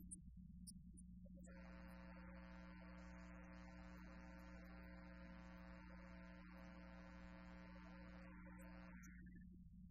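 Faint steady electrical mains hum, with a faint held chord of steady, unwavering tones coming in about a second and a half in and stopping about nine seconds in.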